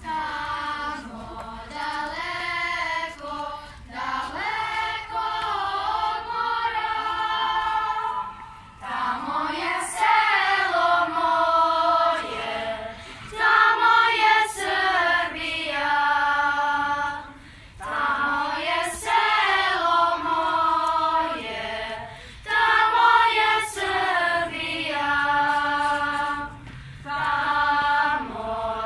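Children's choir singing, phrase after phrase, with short breaths between the phrases.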